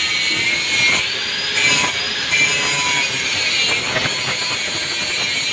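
Angle grinder disc grinding on a motorcycle exhaust muffler: a steady, high-pitched metal-on-metal screech that wavers slightly in pitch as the disc is pressed on.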